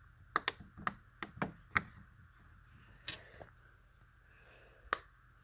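Silicone pop-it fidget toy having its bubbles pushed through by a finger: a quick run of about six sharp little pops in the first two seconds, then two more spaced out, the last near the end.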